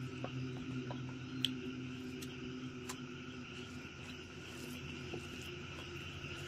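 Night insects, crickets, chirring steadily over a low steady hum, with a few faint clicks scattered through.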